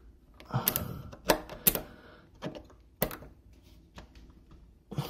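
Irregular sharp clicks and knocks of hand tools on the metal of a deadbolt lock, about seven in all, with no power tool running.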